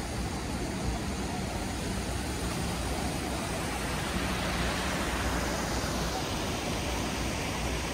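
Steady rushing of river water spilling over a low weir, mixed with a low rumble of traffic, the hiss growing a little stronger in the middle.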